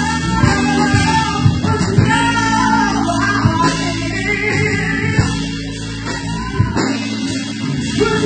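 Blues band playing live: a drum kit keeps a steady beat under bass and electric guitars, with a held, bending lead melody line on top. The bass drops out briefly near the end.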